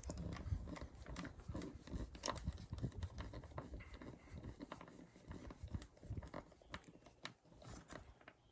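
Faint, irregular small clicks and scrapes of a hand screwdriver driving a mounting screw into a doorbell bracket.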